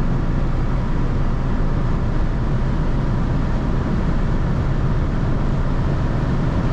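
Inside the cabin of a 1988 Mercedes-Benz 260E (W124), its 2.6-litre straight-six pulling steadily under load at about 180–190 km/h, together with constant road and wind noise.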